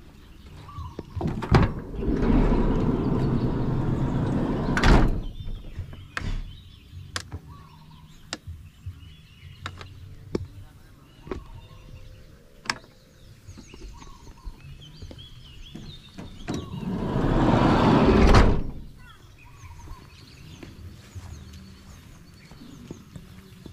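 Sliding side door of a Toyota Hiace van run along its track twice, once about two seconds in and again about sixteen seconds in. Each run is a loud rolling rumble that ends in a sharp thud as the door hits its stop or latches shut. Light clicks and knocks come in between.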